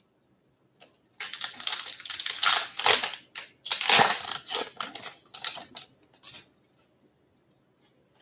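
Foil wrapper of a pack of baseball cards being torn open and crumpled by hand. A run of loud crinkling and tearing starts about a second in and lasts roughly five seconds.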